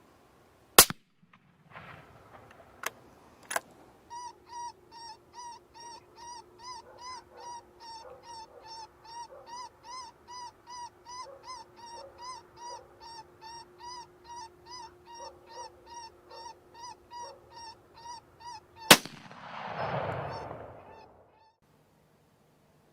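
Two rifle shots, one about a second in and another near the end, with smaller clicks between them early on. Between the shots a rapid honking call repeats two to three times a second for about fifteen seconds over a faint steady hum.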